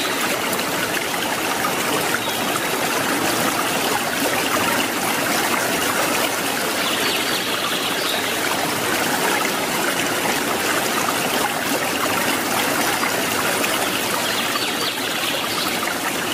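Koi pond fountain: a small jet of water falling back and splashing steadily onto the pond surface.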